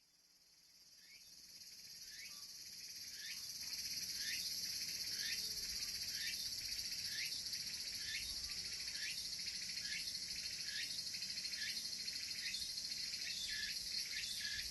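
Tsukutsukuboshi cicada (Meimuna opalifera) singing: a steady high buzz that fades in over the first few seconds, with short repeated chirps about once a second that come faster near the end.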